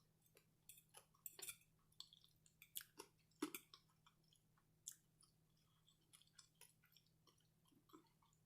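A person chewing food close to the microphone: wet mouth clicks and smacks, thick in the first five seconds and sparser after.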